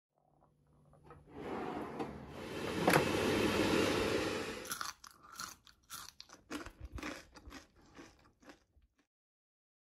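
A few seconds of dense hiss with one sharp click in the middle, then crisp air-fried French fries crunching in a quick, uneven string of bites and chews that stops near the end.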